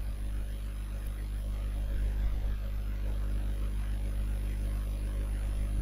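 A steady low hum with no other sounds.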